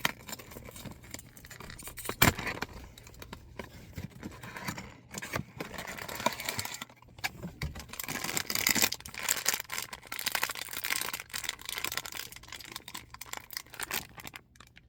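Blind-box toy packaging being handled and torn open: irregular tearing, rustling and crinkling with scattered clicks and taps, busiest in the middle of the stretch.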